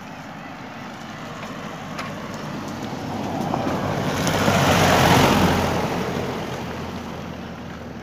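A motor vehicle passing close by on the road: its engine and tyre noise swell, peak about five seconds in, then fade away.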